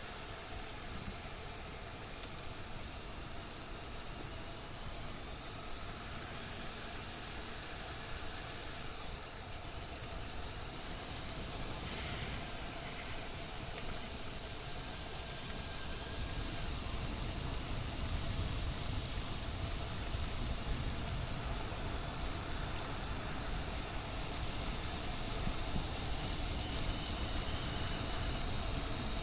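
Motorcycle on the move: steady wind rush over the microphone with the engine running underneath, growing a little louder about halfway through.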